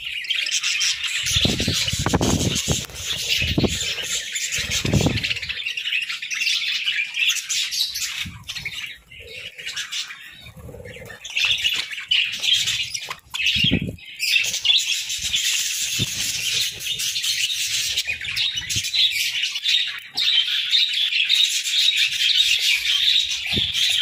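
A flock of budgerigars chattering and chirping continuously, a dense overlapping warble that eases briefly in the middle. There are a few soft low thumps or flutters near the start and once more about halfway through.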